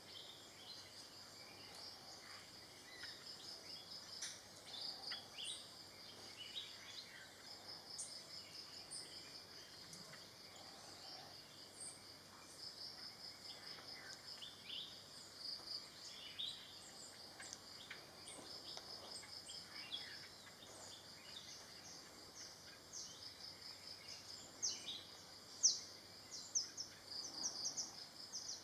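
Faint tropical forest ambience: an insect's high, fast-pulsing trill that stops and starts, with short bird chirps scattered throughout and a few louder ones near the end.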